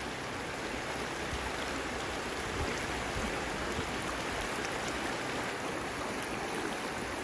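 A fast, shallow river rushing over rocks: a steady rush of water.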